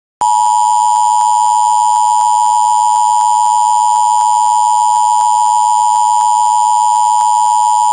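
Emergency Alert System two-tone attention signal: a loud, steady electronic alarm tone held unchanged for nearly eight seconds, cutting off abruptly.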